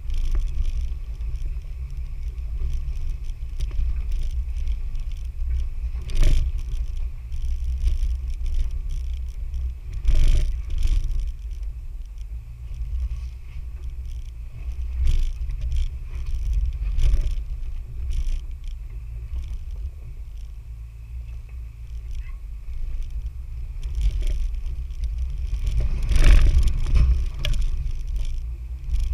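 A 4x4 off-roader crawling along a rough trail, with a steady deep rumble from engine and drivetrain. Several knocks and jolts come through as it goes over bumps, the strongest near the end.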